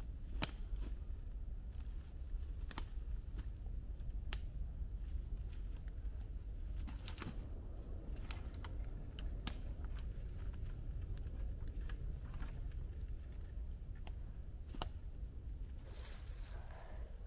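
Scattered sharp cracks and knocks, like sticks and twigs being handled and snapped during shelter building in woodland, over a steady low rumble. A bird gives a short, high, downward-slurred whistle twice.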